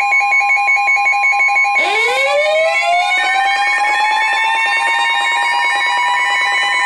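Layered electronic alert tones: a rapidly pulsing two-tone beep over a steady high tone, joined about two seconds in by a warning siren that winds up, rising in pitch and levelling off.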